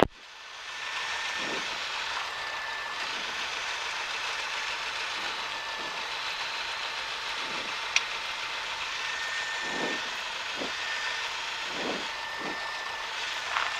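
Steady cabin noise of a Cessna 172 rolling out on the runway after landing, the engine at low power under a steady rush of noise. A few faint low thumps come from the roll along the runway, and there is one sharp click about eight seconds in.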